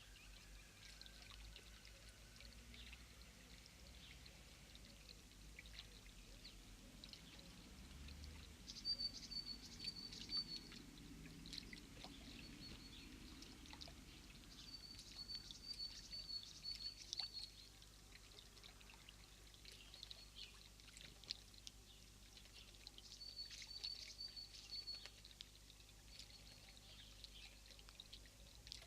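Faint irregular splashing and dripping of a male blackbird bathing in shallow water. A small bird's high trill sounds three times, each lasting about two seconds.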